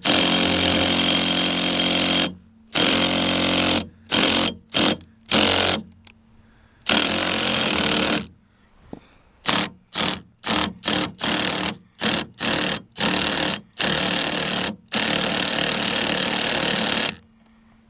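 Impact wrench hammering in repeated trigger bursts, a few long ones of about two seconds and many short blips, working at a fastener soaked in penetrating oil to try to break it loose.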